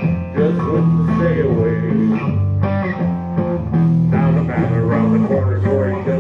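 Instrumental band music: guitar playing over a repeating bass line, with no singing.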